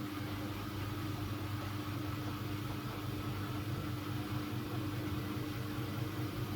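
Siemens Siwamat IQ 716 washing machine running: a steady motor hum with a clear low tone and a slightly fluttering drone beneath it.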